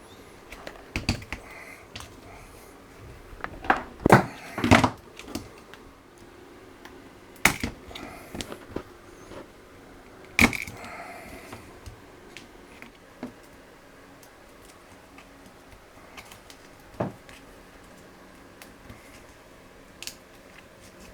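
Irregular clicks and knocks of plastic cable ties being fitted around wires inside a small plastic enclosure, with a cluster of louder knocks about four seconds in.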